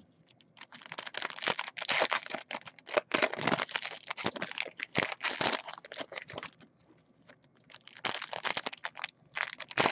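Foil trading-card pack wrappers being torn open and crinkled by hand, a dense run of crackling rustles with a short pause about two-thirds of the way through.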